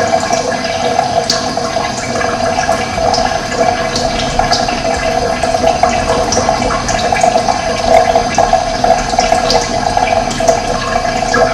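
Steady rush of running water, with short high splashes scattered all through.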